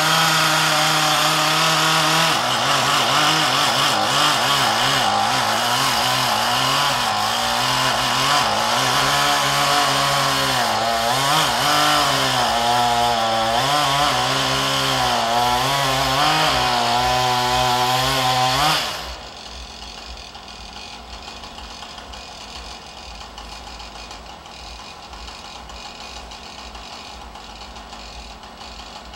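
Two-stroke chainsaw running at full throttle as it cuts into a dead elm trunk, its pitch wavering up and down as the engine bogs and recovers in the cut. About two-thirds of the way through, it drops suddenly to a much quieter idle.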